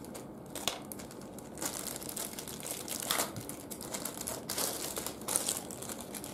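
Thin plastic packaging crinkling and rustling in the hands, in irregular crackles, as a hard-disk cable is unwrapped from its bag.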